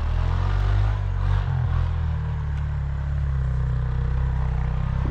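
Four-wheeler (ATV) engine running under throttle while it throws a rooster tail of snow, a steady low drone whose pitch shifts a little about a second and a half in.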